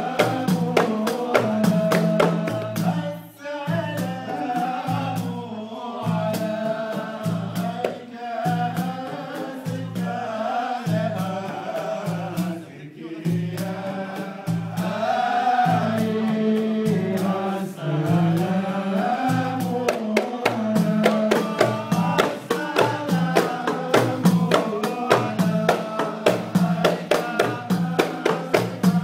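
A group of men chanting a devotional Mawlid song in unison, accompanied by hand-struck frame drums (daf) keeping a steady beat.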